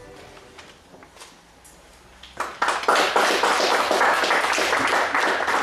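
Audience applauding, many hands clapping, starting about two and a half seconds in after the last notes of music fade out.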